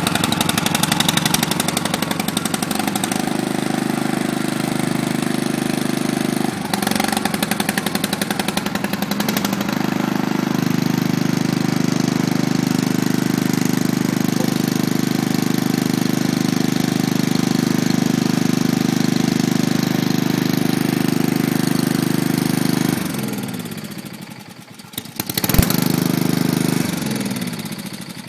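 Small Honda petrol engine of a portable generator running steadily after a cold start. Near the end it is shut off and dies down, with one sharp knock as it stops.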